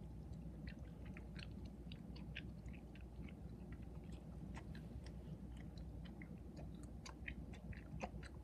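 Chewing food, with many small wet clicks from the mouth.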